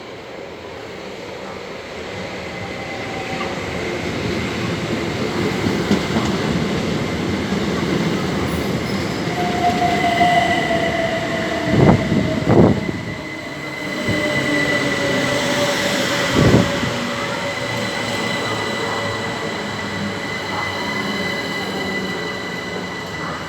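Electric passenger train running along the platform, its rumble building over the first few seconds, with a steady high squeal from the wheels and motors from about halfway and a few sharp knocks as the wheels cross rail joints.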